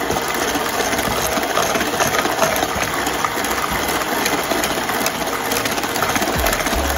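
Electric hand mixer running steadily, its beaters whipping instant pudding and milk in a plastic bowl as the mixture thickens.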